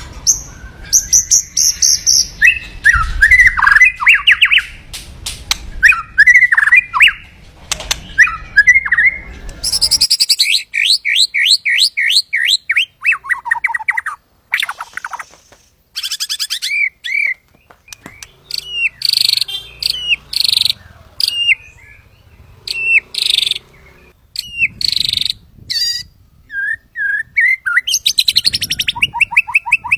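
White-rumped shama (murai batu) singing in full voice: a varied song of fast trills, sweeping whistles and sharp repeated notes, in phrases broken by short pauses.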